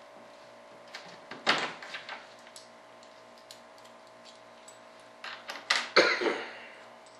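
Nuts and bolts being worked by hand along the flange of a fiberglass wing mold: scattered small clicks, with louder knocks and scrapes about a second and a half in and again near the end, over a faint steady hum.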